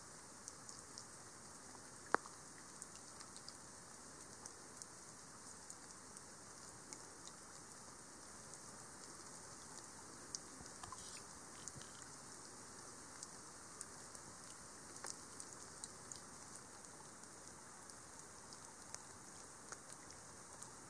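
Faint, steady rainfall, with scattered individual raindrops ticking and one louder drop about two seconds in.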